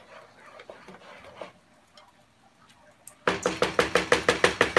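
A wooden spoon stirring thick grits in a saucepan. It is faint scraping at first, then about three seconds in it turns into fast, even knocking against the pot, about seven strokes a second.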